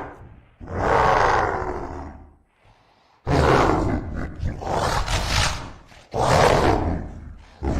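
Dinocroc creature roar sound effect: three long, rough roars in a row, each starting abruptly and fading out, with a short pause between them.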